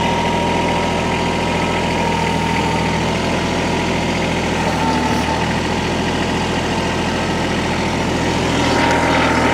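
Air compressor running steadily, filling the suspension air bags to raise the truck, with a thin steady high tone over the motor's hum. It switches on and cuts off abruptly.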